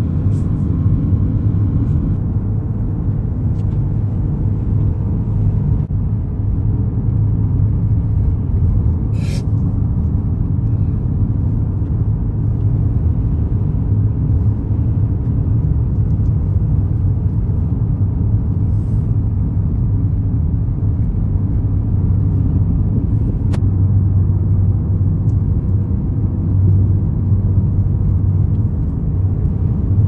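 Steady low rumble of a car driving, heard from inside the cabin: road and engine noise, with a short tick about nine seconds in.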